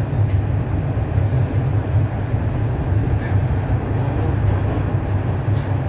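Steady low rumble of a TTC subway train running, heard from inside the passenger car.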